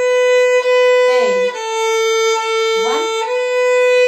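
Violin bowing even, sustained notes on the A string, a note about every second, the pitch stepping down slightly in the middle and back up. Twice a short swooping tone dips and rises behind the notes.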